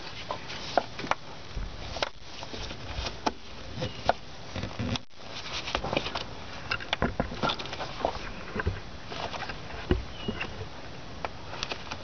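Irregular clicks, taps and scrapes of prying at the accelerator cable's plastic grommet in the car's firewall, with no steady rhythm.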